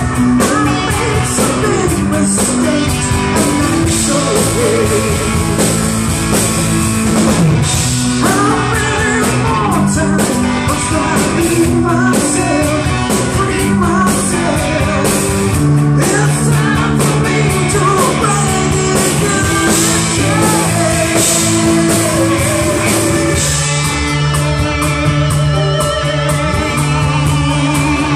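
Live rock band playing: a woman singing over electric guitar, keyboards, bass and drums.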